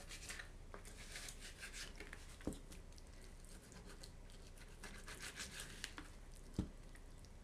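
Knife slicing raw chicken thigh on a plastic cutting board: faint scraping and tearing as the blade works through skin and meat, with two louder knocks, one about two and a half seconds in and one near the end.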